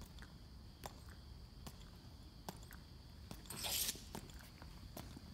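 Faint, sharp footsteps of two soldiers marching in step on stone paving, their metal-tapped heels clicking about once every 0.8 seconds. A brief rustle a little past halfway is the loudest sound.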